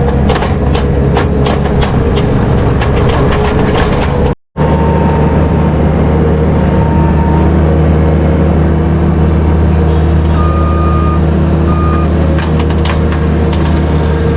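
Heavy farm machinery engine running steadily, with rapid clattering clicks over it for the first few seconds. After a cut about four seconds in, the engine drone goes on, with two short beeps about two-thirds of the way through.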